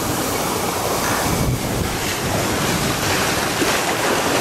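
Whitewater of a river-raft ride's rapids rushing steadily around the raft, with wind buffeting the microphone.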